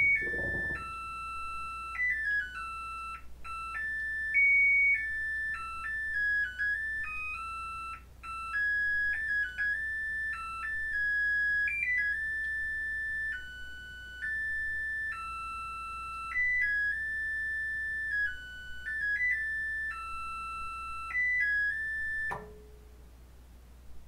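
GE Spacemaker WSLS1100 washing machine's electronic beeper playing a long melody of pure high beeps: the tune it plays when the cycle is done. The melody stops near the end, followed by a single click.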